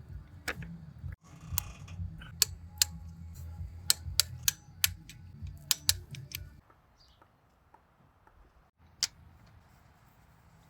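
A series of sharp clicks and knocks, about a dozen, over a low steady hum; both stop about two-thirds of the way in, leaving a quieter stretch with one more click.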